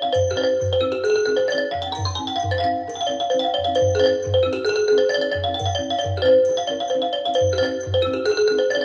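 Music playing through Wilson Audio WATT/Puppy 7 floor-standing loudspeakers: a pattern of short, bright pitched notes over a bass pulse that repeats, often in close pairs.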